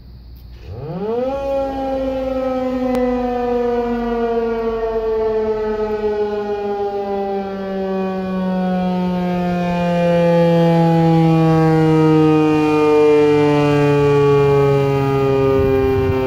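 American Signal T-128 electromechanical outdoor warning siren sounding a growl test: it winds up sharply about a second in, then its wail slowly falls in pitch as it coasts down. The volume swells later as the rotating horn swings around.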